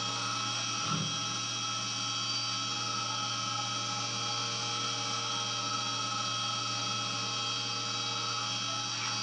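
Syil X7 CNC milling machine's spindle running steadily as the end mill cuts a metal block under flood coolant, a constant whine made of several high tones over a hiss. A brief low thump about a second in.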